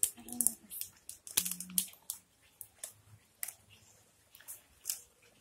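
Plastic play-dough molds and tools being handled on a tile floor: irregular small clicks and clacks of plastic.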